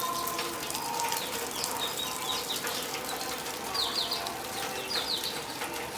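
Steady rain falling, with small birds chirping over it: quick runs of short, falling chirps about two and a half, four and five seconds in.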